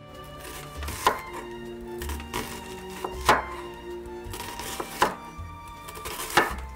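A chef's knife cuts down through a peeled onion onto a wooden cutting board, four sharp knocks a second or two apart. Background waltz music plays throughout.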